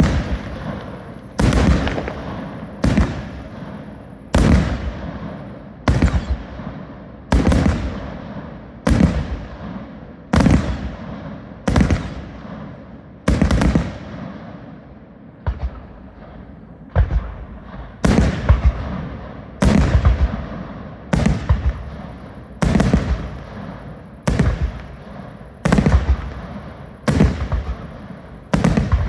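Fireworks going off in a steady string, a loud bang about every one and a half seconds, each trailing off in a rumbling echo.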